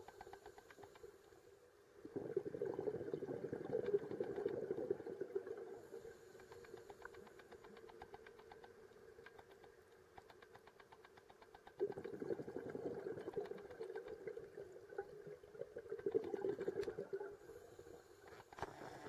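Underwater sound on a reef: a steady crackle of many fine clicks, with a diver's exhaled breath bubbling out of the scuba regulator in bursts of a few seconds, about two seconds in, near twelve seconds and again near sixteen seconds.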